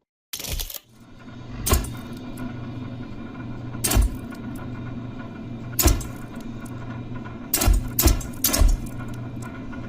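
Camera shutter clicking six times at uneven intervals, three of them close together near the end, over a steady hum.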